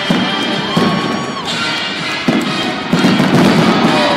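Aerial firework shells bursting in quick succession with crackling, over music. The bangs get louder and denser about three seconds in.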